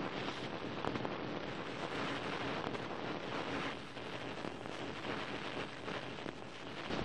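Screen-glitch sound effect: a steady hiss of static, full of fine crackling, dipping a little in the middle.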